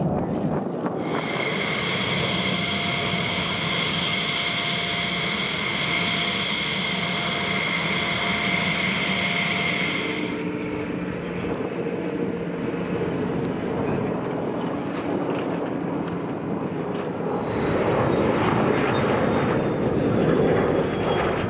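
F-16 fighter jet engines in flight: a steady jet rush with a high-pitched turbine whine through the first half. It changes abruptly about ten seconds in to a broader jet rush, which swells louder near the end as an F-16 passes low on its landing approach.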